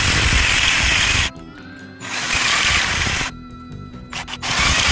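A small power tool grinding out the centre hole of a steel washer in short bursts of about a second each, stopping twice and starting again near the end, with background music between the bursts.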